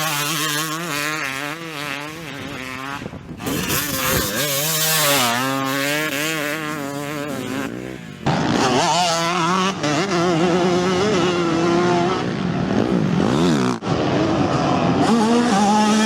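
Two-stroke motocross motorcycle engines revving, the pitch wobbling up and down with constant throttle changes. About halfway through, the sound jumps abruptly to a louder engine.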